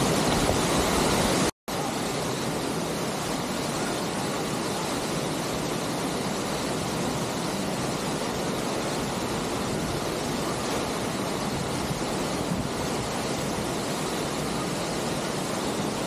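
Waterfall: a steady rush of falling water, with a momentary break in the sound about a second and a half in.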